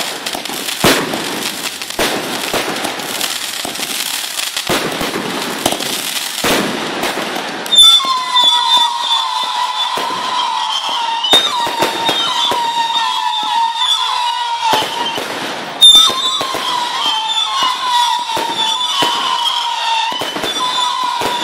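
A fireworks display: a dense crackling of bursting shells, then a loud bang about eight seconds in, followed by shrill whistling that holds nearly steady and sags slightly in pitch. A second loud bang and a fresh run of whistling come about eight seconds later, with scattered pops throughout.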